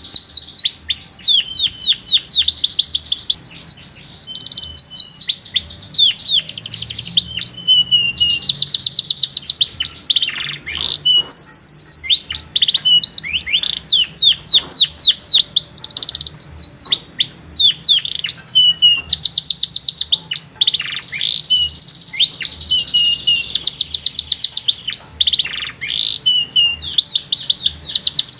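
Domestic canary singing a long song of rapid high trills, each a fast run of repeated notes, moving from one trill to the next with brief pauses between.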